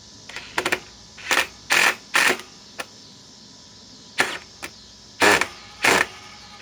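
DeWalt XR DCF860 cordless impact driver hammering in about ten short trigger bursts with pauses between them, as the trigger is feathered to drive a long drywall screw; the driver jumps straight into hard impacting with no slow feather mode, so it can't be eased in.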